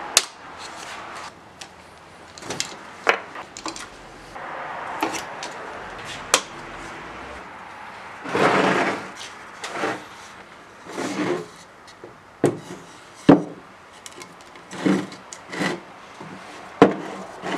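Bar clamps being released and glued-up wooden blocks handled on a wooden workbench: a series of irregular sharp clicks and knocks with short scraping and rubbing sounds in between.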